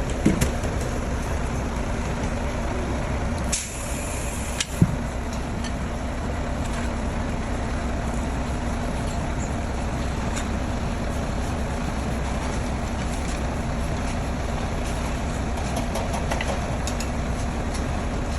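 A motor running steadily, with a few sharp knocks and a brief hiss about three and a half seconds in.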